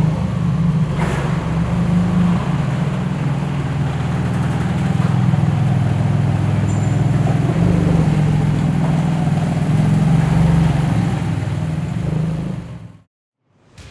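Porsche 911 GT2 RS twin-turbo flat-six running at low revs as the car creeps along, a steady low exhaust rumble that fades out near the end.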